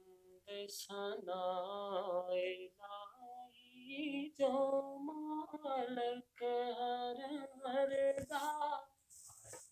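A man singing an Urdu-Punjabi devotional naat unaccompanied, in a high voice, with long held notes that bend in pitch and short breaks between phrases.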